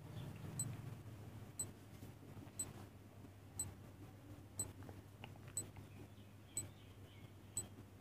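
Countdown timer's clock-tick sound effect: a short, high tick once a second, over a faint low hum.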